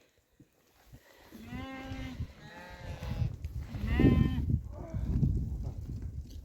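Sheep bleating: three bleats about a second apart, starting about a second and a half in, over a low rumbling noise.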